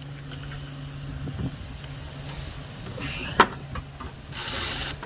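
Socket, extension and ratchet handled while tightening radiator hose clamps: a few light clicks and one sharp metal clack about three and a half seconds in, then a short rasping burst of ratcheting near the end, over a steady low hum.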